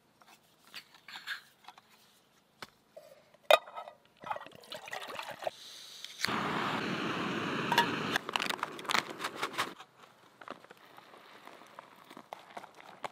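A canister camping gas stove being fitted and handled, with clicks and a sharp click about three and a half seconds in, then the burner hissing steadily for about three and a half seconds before it cuts off. Near the end, quieter trickling and crinkling as hot water goes into a foil meal pouch.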